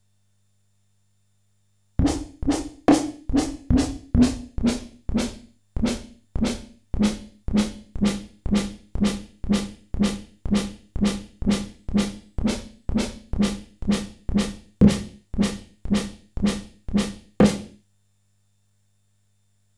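Simmons SDS7 hybrid analog/digital snare voice struck about twice a second while its Bend (pitch-bend) setting is turned, with a short reverb on each hit. The drum's tone is higher in the first few hits, then drops and holds steady lower for the rest.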